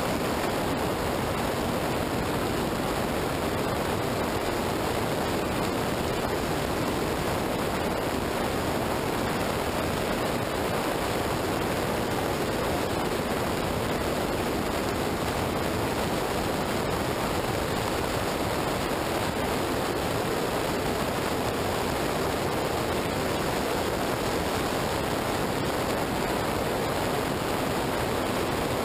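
Steady rush of wind and tyre spray on a wet highway at speed, picked up by an action camera's microphone mounted low on the vehicle; an even roar with no engine note standing out.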